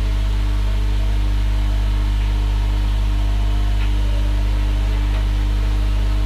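Steady low electrical hum with a buzz, unchanging throughout.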